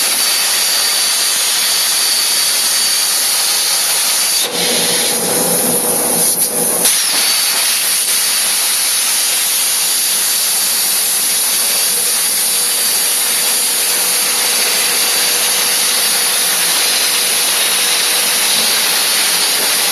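CNC machine running its job: a loud, steady hiss with a thin high whine, changing briefly about four and a half seconds in before settling again.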